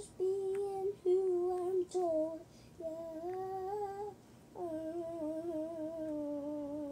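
A young boy singing a slow tune without clear words, in several held notes with short breaths between them; the last note, starting past halfway, is the longest and slowly sinks in pitch.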